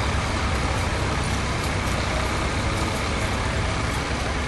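Tractor engine running steadily at a constant low pitch, with a broad hiss of outdoor noise over it.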